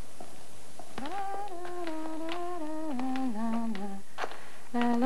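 A woman's voice humming a slow, wordless tune in held notes that step downward, starting about a second in and breaking off near four seconds, then beginning again just before the end.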